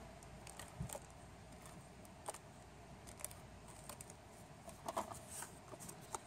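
Faint handling noises of paper crafting: a tape-runner adhesive dispenser worked on cardstock and the paper layer handled, heard as a few scattered soft clicks and rustles, with a small cluster about five seconds in.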